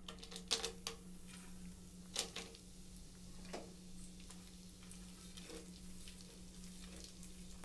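Chopped almonds dropped into hot ghee in a non-stick pan, frying faintly. A few sharp crackles and clicks come in the first few seconds, then a soft steady sizzle, over a low steady hum.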